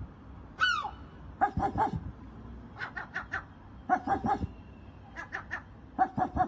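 Seagull giving short, bark-like calls in quick runs of three or four, repeated several times, after a single falling squawk about half a second in.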